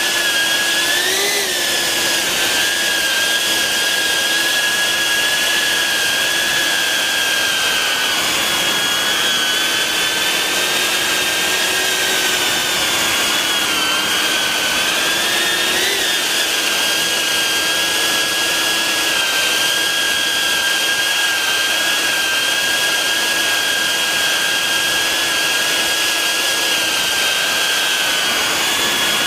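BetaFPV 95X V3 quadcopter's brushless motors and propellers whining steadily in flight, heard from a camera mounted on the drone. The pitch rises briefly a little over a second in and again about halfway through.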